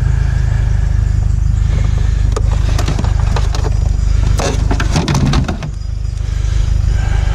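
Steady low rumble of a car on the move, heard from inside, with scattered clicks and rattles, a cluster of them about five seconds in.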